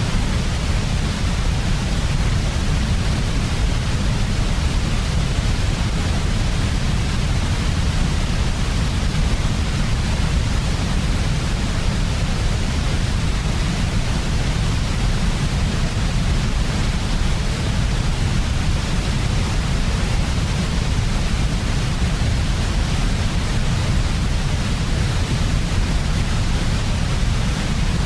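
Steady synthetic noise of the white-noise kind made for lulling a baby to sleep, even and unchanging, with most of its weight in the low end below a hiss that reaches high up.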